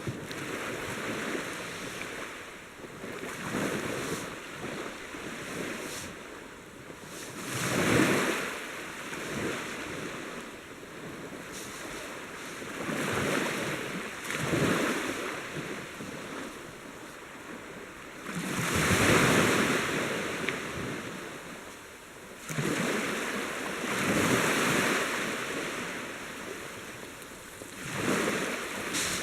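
Sea water washing and surging in swells, a loud rush every few seconds, with wind buffeting the microphone.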